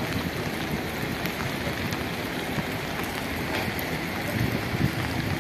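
Strong storm wind rushing past and buffeting the microphone in an uneven low rumble, over a steady hiss.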